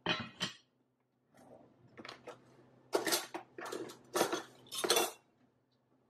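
An enameled cast-iron Le Creuset lid is set down on its pot with two quick clanks, then a run of clinks as metal spoons are put into ceramic soup bowls.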